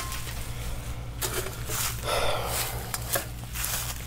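Rustling and scraping in dry leaf litter and dirt, in a few short bursts, as a flat shovel is shifted over the ground.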